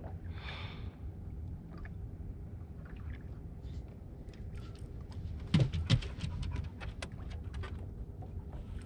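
A person taking a long breath near the start, then one louder short sound with a low voice-like pitch about halfway through. Under both runs a steady low rumble from wind and water around a small boat, with scattered light clicks.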